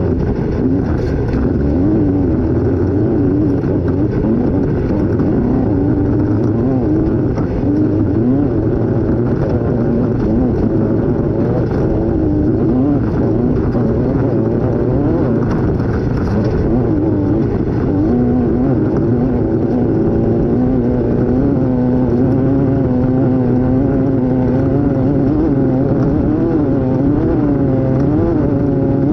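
Off-road race vehicle's engine running hard through a race lap, its pitch rising and falling constantly with the throttle, over a heavy low rumble.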